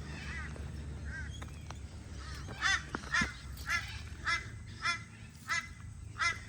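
A bird calling over and over in short pitched calls, about two a second, faint at first and louder from a couple of seconds in, over a low steady rumble.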